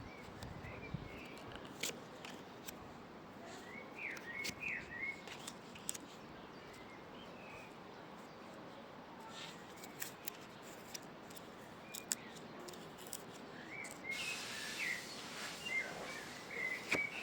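Small birds chirping in short bursts over a steady rushing background of wind, with scattered sharp clicks; the rushing grows louder about three seconds before the end as the birds chirp more.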